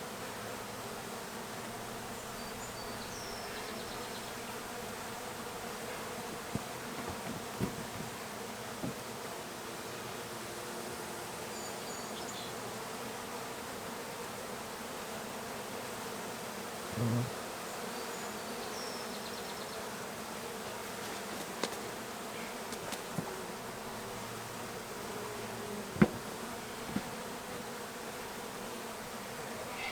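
Honey bees of a large, disturbed colony buzzing as a steady hum while the comb is cut out of their nest. A few small knocks and clicks, the sharpest about three quarters of the way through.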